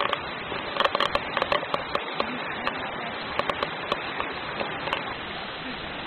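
Shallow stream running over stones, a steady rush of water, with a scatter of short sharp clicks and knocks through the first five seconds.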